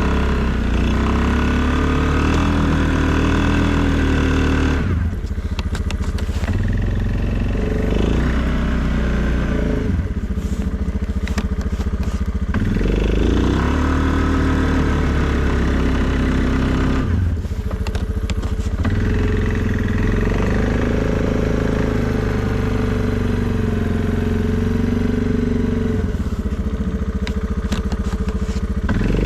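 2020 Suzuki KingQuad ATV's single-cylinder four-stroke engine working under load while plowing snow, its pitch rising and falling. The engine eases back three times, about 5, 10 and 17 seconds in, between pushes.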